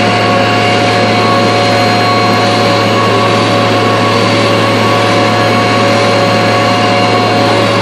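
A boom truck's engine and hydraulics running steadily, a constant hum with an even whine over it, as the crane hoists a personnel cage on its cable.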